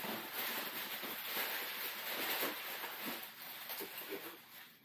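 Crumpled brown kraft packing paper rustling and crackling as it is handled and pulled out of a cardboard box, dying away near the end.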